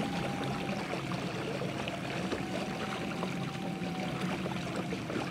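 Water trickling and lapping against a kayak hull on the move, with a faint, steady, slightly wavering whine underneath and a few small ticks.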